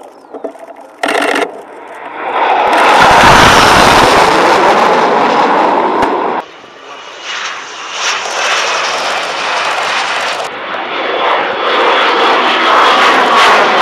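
Loud military jet engine noise in edited segments. A pair of jets flying past builds to a loud roar and is cut off sharply about six seconds in. Jet noise then builds again, and a Harrier jump jet's Pegasus engine runs loud and steady overhead near the end.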